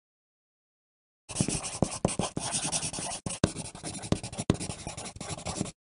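Pencil writing on paper: a run of scratchy strokes with a few sharper taps, starting about a second and a half in and stopping abruptly near the end.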